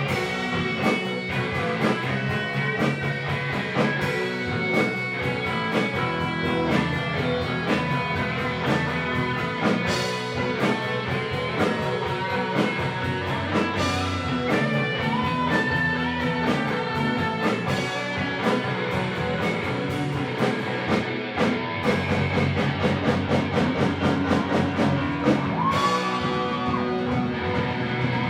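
Live rock band playing, with electric guitar, bass and drum kit, steady and loud throughout.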